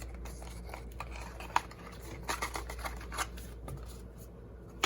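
Light clicks and rustling of small items and their packaging being handled, with a sharper tick about a second and a half in and a run of small clicks a little later.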